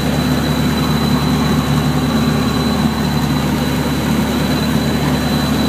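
Boat engine running steadily: an even low hum with a thin, steady high whine above it, over a constant wash of noise.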